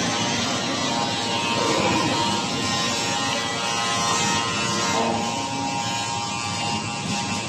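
Shanghai Henger automatic dough sheeter running, a steady mechanical hum of its motors, rollers and conveyor belts as it feeds a dough sheet and winds it onto a roller; the sound shifts about five seconds in.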